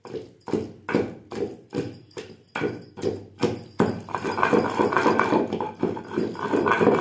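Long wooden pestle pounding peanut chutney in a heavy stone mortar: a steady train of thuds, about two or three a second, turning faster and denser about four seconds in.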